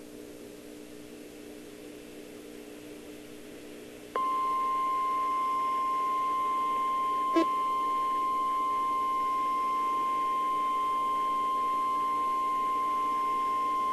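Emergency Alert System attention signal: a single steady tone of about 1050 Hz, the National Weather Service warning alarm tone. It starts suddenly about four seconds in and stops about ten seconds later, over a low steady hum, with one brief click partway through.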